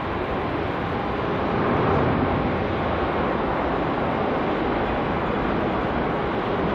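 Airbus A350-941 jet airliner taking off, its Rolls-Royce Trent XWB engines at takeoff power giving a steady, even jet noise, mixed with wind on the microphone.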